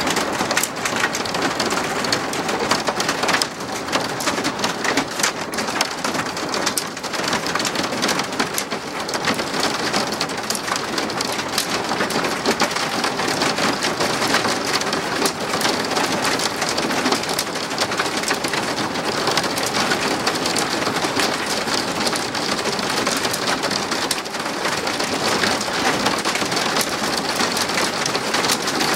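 Hailstorm: hailstones and rain pelting down in a dense, steady clatter, with many sharp individual hits.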